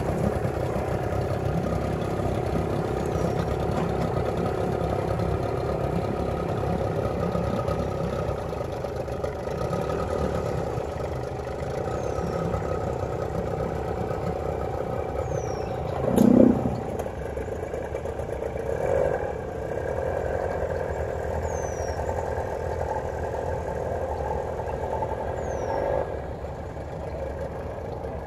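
Outboard boat motor running steadily, easing slightly toward the end. There is a knock about 16 seconds in and a smaller one near 19 seconds, with a few faint short chirps.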